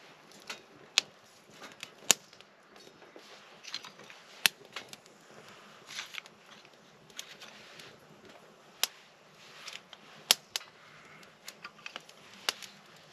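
Wood fire crackling: sharp, irregular pops and clicks over a faint hiss, a handful of pops much louder than the rest.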